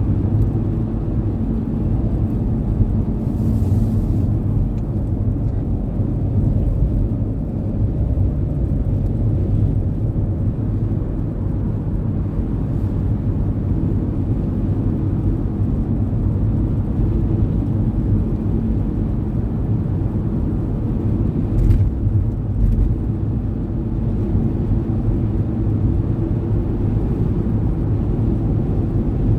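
Car driving, with a steady low rumble of engine and tyres from inside the cabin. Two brief knocks come about two-thirds of the way through.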